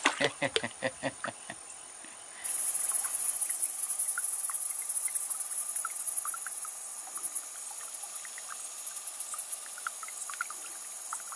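A quick run of about six light splashy pops as a bait fish on a line is popped against the creek surface to imitate a sick fish. From about two seconds in, a steady high-pitched insect chorus takes over, with scattered faint ticks.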